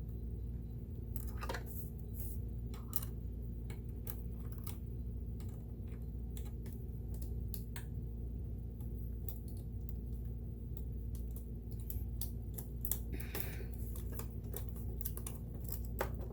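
Scattered small clicks and taps of a screwdriver and metal parts as a sewing machine's needle plate is unscrewed and lifted off, over a steady low hum.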